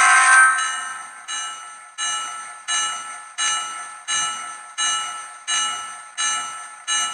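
Grade-crossing bell sound effect from a Digitrax SDXH167D sound decoder, played through the small speaker in an HO-scale SD9 model locomotive. The bell strikes about every 0.7 seconds, each ring fading before the next, and stops near the end.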